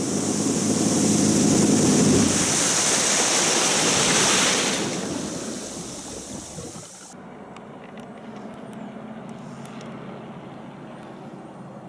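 Steady rushing of wind and water from travelling across the bay, fading away over a couple of seconds. About seven seconds in it gives way abruptly to a much quieter outdoor background with a few faint clicks.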